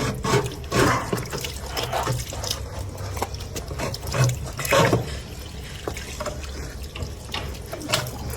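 Water splashing and gurgling in a drain or sink in irregular bursts, loudest about a second in and again near the middle, over a steady low hum.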